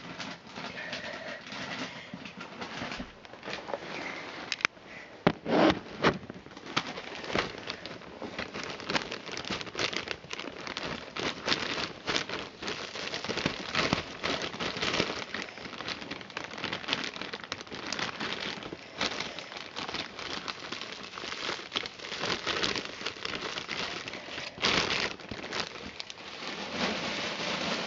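Dry wood shavings rustling and crackling as bedding is poured from a plastic bag and spread around a plastic storage bin, with the bag crinkling. It is louder about five seconds in and again near the end.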